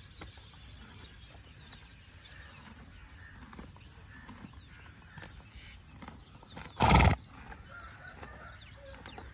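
A horse grazing close by, with one short, loud snort through its nostrils about seven seconds in. Faint bird chirps near the end.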